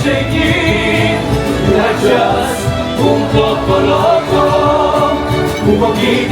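Music with a group of voices singing, steady and loud throughout.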